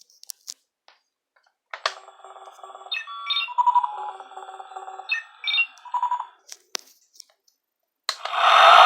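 Toy Batmobile's electronic sound effects: a few clicks, then a run of tinny electronic beeps and chirps like a ringtone. Near the end a loud noisy burst of sound begins.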